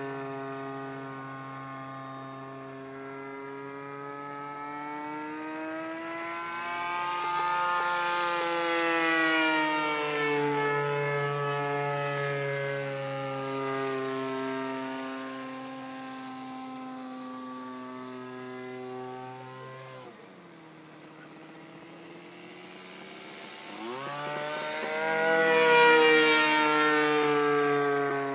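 PAW .19 model diesel engine of a flying RC plane, running as a steady buzzing whine whose pitch and loudness rise and fall as the plane passes. About 20 seconds in the note drops low and quiet, then climbs sharply a few seconds later and is loudest as the plane comes by low.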